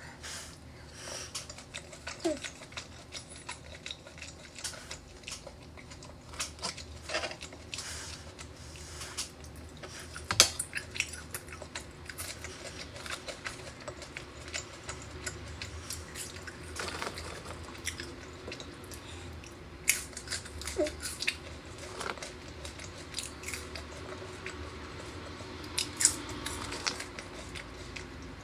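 Close-miked eating sounds: chewing steak with small wet mouth noises, and scattered sharp clicks of a metal fork against the board, a few of them louder.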